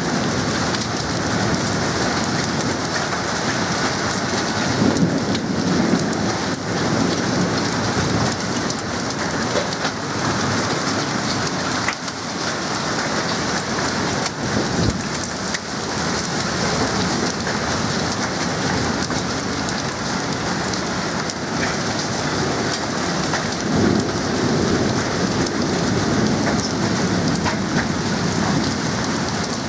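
Heavy rain mixed with small hail pelting the lawn and paving: a steady, dense hiss with scattered sharp ticks of hailstones. Low rumbles swell up a couple of times, around five seconds in and again near the end.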